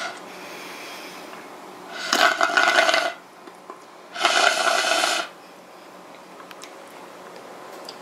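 Melted ice cream slurped up through a plastic straw from a glass bowl: two loud slurps of about a second each, about two and four seconds in.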